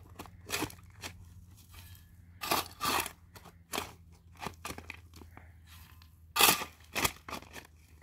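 A series of irregular crunches and scrapes, loudest about two and a half and six and a half seconds in, over a low steady hum.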